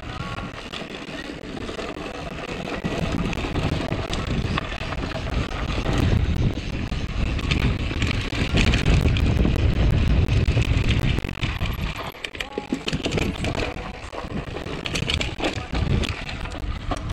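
Mountain bike riding fast down a dirt singletrack: tyres rumbling and crunching over dirt and stones, the bike rattling with many small knocks, and wind buffeting the microphone. Loudest in the middle stretch, easing off for a moment a little after that.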